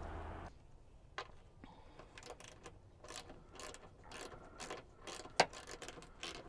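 Socket ratchet wrench clicking in short irregular runs as bolts are worked on the rear-door stabilizer receiver, with one louder click near the end.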